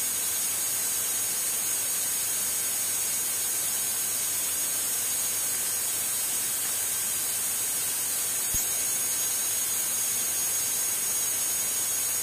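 Steady electronic hiss from an aircraft intercom and radio audio feed between transmissions, with a faint click about eight and a half seconds in.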